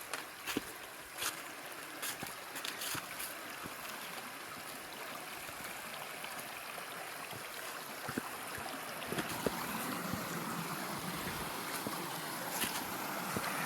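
Steady rush of river water, with occasional sharp clicks and snaps over it.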